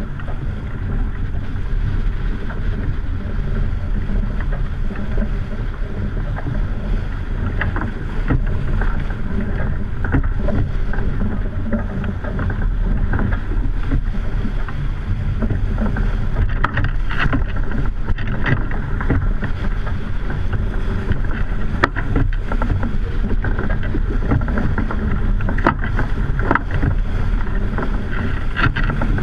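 Water rushing along the hull of a racing sailboat heeled hard over in choppy seas, with wind buffeting the microphone. Scattered sharp slaps and knocks from waves and spray hitting the boat, more frequent in the second half.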